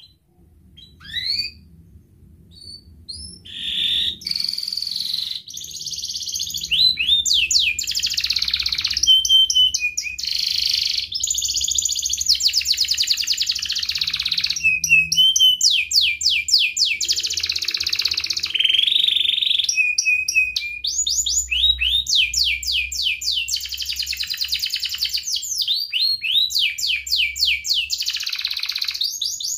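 Domestic canary singing a long, near-unbroken song of rapid trills and buzzy rolling phrases, after a few short rising chirps at the start.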